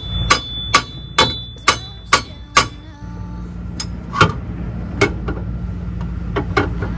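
Sharp metal-on-metal strikes with a ringing tone as the AE86's broken rear axle shaft is worked out of its housing at the hub: a run of seven blows about two a second, then a few scattered knocks.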